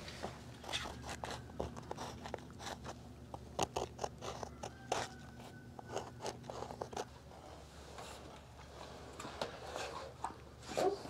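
Irregular short scrapes, crunches and clicks of hands-on work, over a low steady hum.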